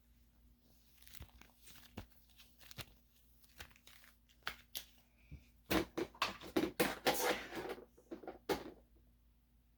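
Crinkling, crackling and tearing handling sounds: scattered small clicks at first, then a dense, louder run of crackly bursts for about three seconds in the second half.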